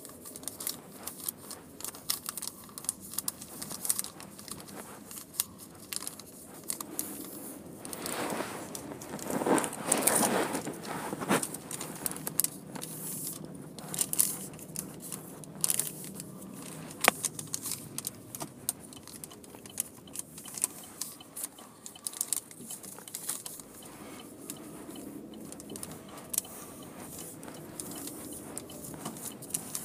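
Handling noise: scattered clicks, scrapes and crackles of something rubbing against the recording device, with a few seconds of louder rustling about eight seconds in.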